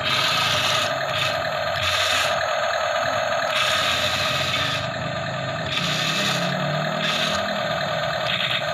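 Remote-control toy tank driving and turning over concrete: a steady mechanical whirr of its electric motors and gearbox with the tracks scraping on the ground.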